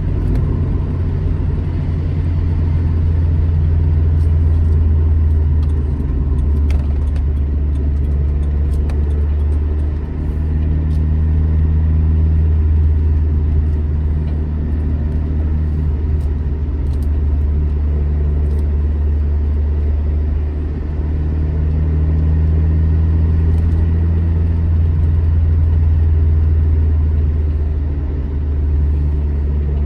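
Alfa Romeo GT Junior's twin-cam four-cylinder engine running under way, a steady low drone whose pitch steps up and down every few seconds, with short dips in level as the revs change.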